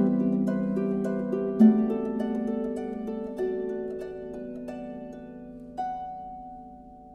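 Background music of plucked-string notes over a held low tone, slowly fading out, with one last note about six seconds in dying away.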